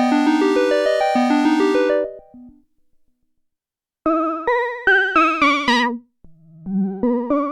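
Arturia MicroFreak synthesizer playing presets: a fast sequence of short bright notes fades out about two seconds in, and after a second of silence a new lead sound begins, a melody of short decaying notes with vibrato.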